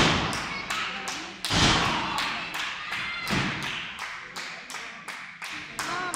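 Wrestlers' bodies slamming onto a wrestling-ring canvas: three heavy thuds that ring out on the boards, one right at the start, one about a second and a half in and a smaller one about three and a half seconds in.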